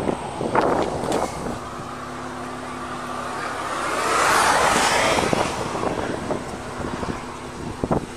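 A car passing on the highway close by: its tyre and engine noise swells to a peak about halfway through, then fades away. A faint steady low hum runs underneath.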